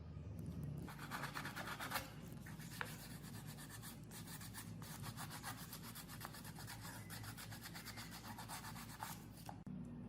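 Rapid back-and-forth abrasive rubbing by hand, the kind of scrubbing or sanding used to take rust off an old part. It starts about a second in and stops near the end.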